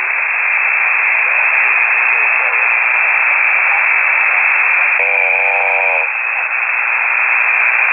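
Steady static and hiss from a single-sideband shortwave radio channel received on a KiwiSDR web receiver, heard through the receiver's narrow voice passband. About five seconds in, a voice comes briefly through the static.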